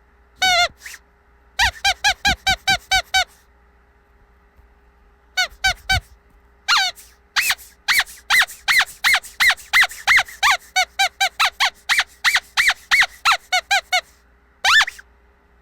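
Squeaky dog toy being squeezed over and over, each squeak a short pitched note that rises and falls. A quick run of about eight squeaks comes first, then a pause of about two seconds, then a long run of squeaks at about three a second.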